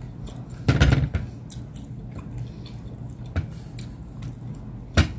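Close-up eating sounds of someone chewing roast meat: wet chewing and lip smacks with small clicks. A louder burst comes about a second in, and a sharp smack near the end.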